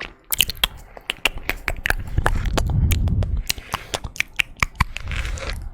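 Close-miked ASMR trigger sounds: rapid, irregular sharp clicks and crackles, with soft rubbing against the microphone about two seconds in and again near the end.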